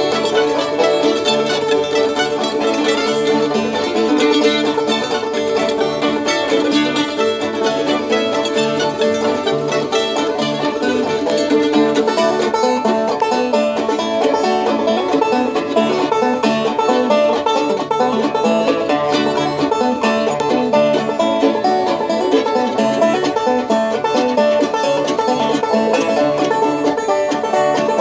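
Bluegrass jam played on acoustic instruments with no singing: a resonator banjo and a mandolin picking the tune, backed by strummed acoustic guitar and an upright bass.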